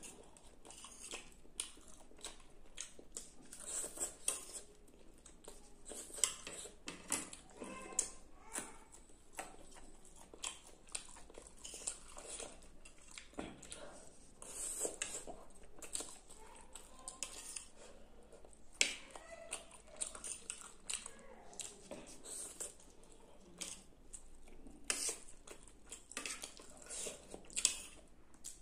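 Close-miked eating of noodles and macaroni: a metal fork clicking and scraping on a plate, with chewing between bites. The clicks come at irregular intervals, a sharp louder one a little past the middle and another near the end.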